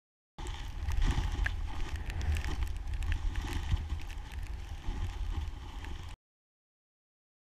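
Wind rumbling on an action camera's microphone over the hiss of skis running through deep powder snow, with scattered small clicks. It starts about half a second in and cuts off abruptly about six seconds in.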